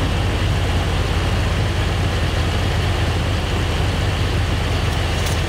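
1999 Dodge Ram 2500's 360 (5.9-litre) V8 idling steadily, warmed up, heard close up from under the open hood. A light click comes near the end.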